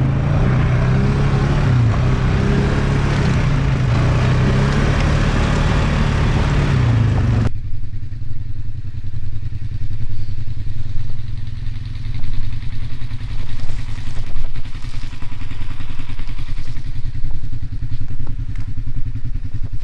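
ATV (quad) engine running on a gravel trail, its pitch rising and falling with the throttle. About seven seconds in it cuts off abruptly to a lower, uneven rumble with scattered clicks.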